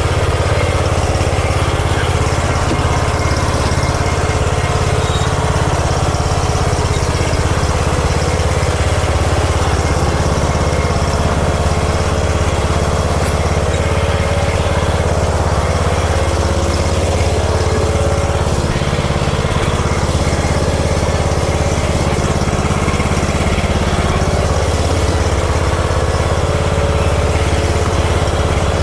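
Riding lawn mower engine running steadily at an even speed, with no change in pitch or level.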